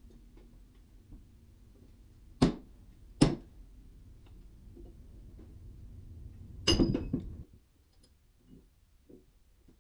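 Two sharp knocks of tools on timber about a second apart, then a short clatter with a brief metallic ring.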